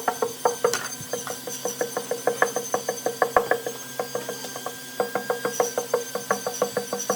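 Rapid, uneven knocking, several sharp hollow knocks a second, over a steady low hum and a faint high whine.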